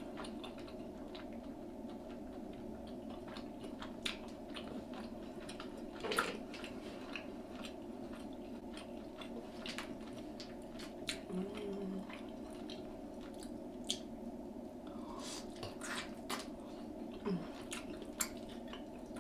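Close-miked chewing and wet mouth sounds as braised oxtail meat is eaten off the bone, scattered smacks and clicks over a steady low hum.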